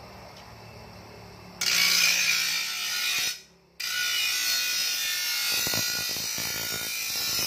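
Bench grinder wheel grinding the edge of a steel shovel blade to sharpen it: a loud rasping hiss that starts suddenly about a second and a half in and runs in two stretches, broken off for a moment about three and a half seconds in.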